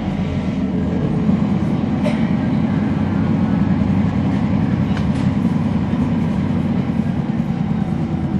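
Rear-cabin sound of a NABI 416.15 transit bus running: a steady, loud low drone from its Cummins ISL9 diesel and ZF Ecolife six-speed automatic transmission, the transmission making most of the noise. A couple of faint rattles about two and five seconds in.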